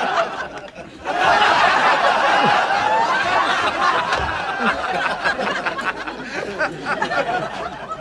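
Sitcom studio audience laughing: a big laugh swells about a second in and slowly dies away.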